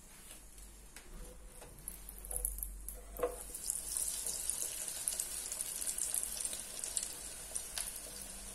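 A wire basket is lowered into an electric deep fryer's hot oil about three seconds in, with one light metal clunk. Steady sizzling and crackling follows as the cornflake-coated brioche rolls fry.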